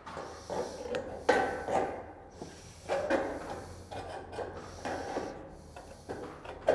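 Aviation snips cutting across a sheet-metal cleat: a string of short metal snips, each bite of the blades a separate cut, with a brief pause about two seconds in.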